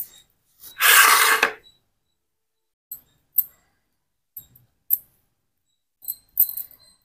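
A brief loud rushing, scraping noise about a second in, then soft scattered clicks and taps as modak dumplings are set one by one into the cups of a greased metal idli plate.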